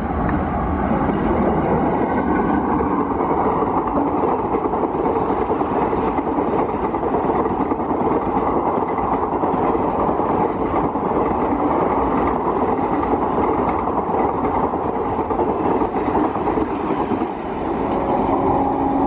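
Passenger express hauled by a WAP-4 electric locomotive running past at speed: a loud, steady rumble and rattle of the coaches' wheels on the rails, easing slightly near the end as the train draws away.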